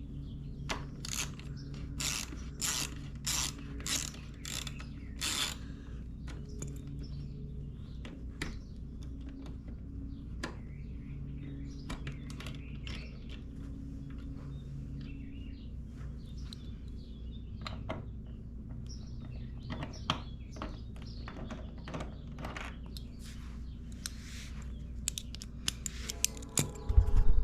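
Hand ratchet clicking as the motorcycle's fairing bolts are worked loose: a run of about eight evenly spaced clicks, then scattered clicks and taps over a steady low hum. Louder knocking and handling noise comes in near the end.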